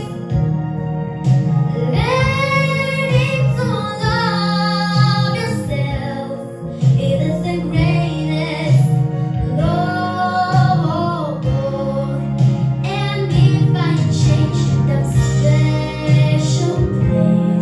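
A young girl singing a slow ballad into a handheld microphone, holding long wavering notes, over an instrumental backing track.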